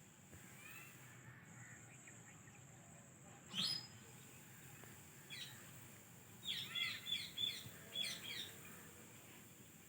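White Indian ringneck parakeet chirping: one sharp, loud call about a third of the way in, then a quick run of about six short chirps a few seconds later.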